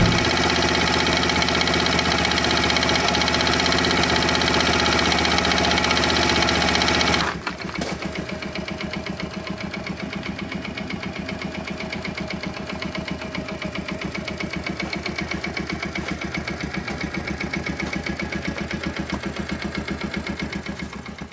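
Honda Motra CT50's small single-cylinder four-stroke engine running steadily at raised revs, then dropping abruptly about seven seconds in to a quieter, slower idle with an even pulse.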